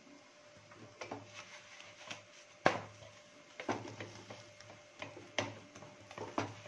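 Wooden spatula knocking and scraping against a nonstick pan as a paratha is flipped and pressed flat: a string of light clicks and knocks, the sharpest about two and a half seconds in.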